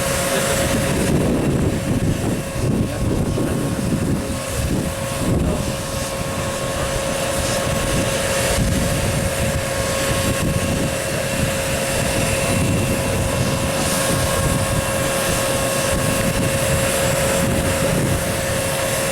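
Engines of a Dassault Falcon 900B business jet (three Honeywell/Garrett TFE731 turbofans) running, a steady whine over an uneven low rumble.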